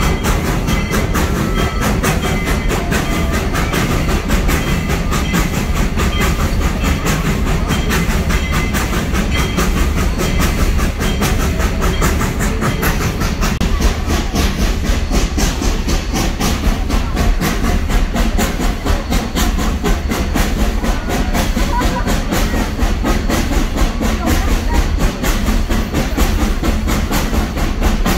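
Narrow-gauge steam train running along the track, heard from an open passenger car: a steady clatter of wheels on rails over a low rumble, with the hiss of the steam locomotive.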